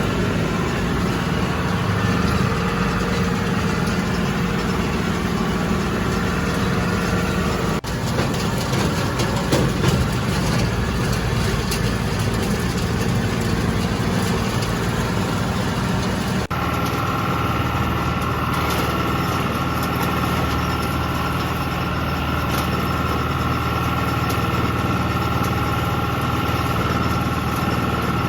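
Tractor engine running steadily while mowing with a rotary cutter, its tone shifting abruptly twice, about eight and sixteen seconds in.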